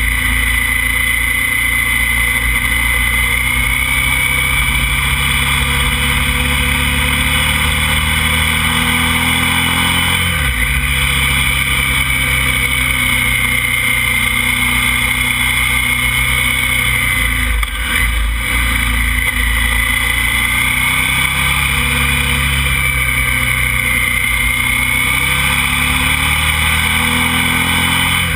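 KTM motorcycle engine running steadily under way, its note dropping briefly twice, about ten seconds in and again near eighteen seconds.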